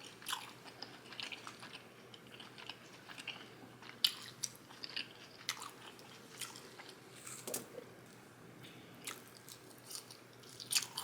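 Close-miked chewing of a person eating: irregular wet mouth smacks and soft crunches, the sharpest about four seconds in and near the end.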